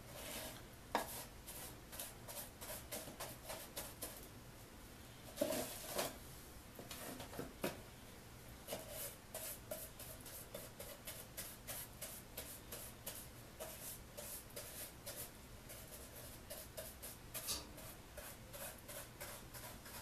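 Paintbrush loaded with latex paint stroking over a wooden birdhouse: a run of faint, scratchy brushing strokes, a few a second, with a couple of louder knocks or handling noises around the middle.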